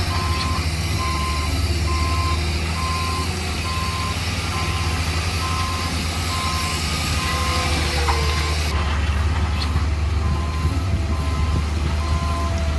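Reversing alarm on a heavy construction machine beeping steadily, about two beeps a second, over a low steady engine hum; the beeping pauses briefly about eight seconds in.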